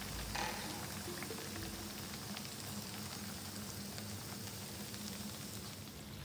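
Rounds of hot-water flour dough frying in oil in a pan, giving a steady sizzle as they puff up hollow.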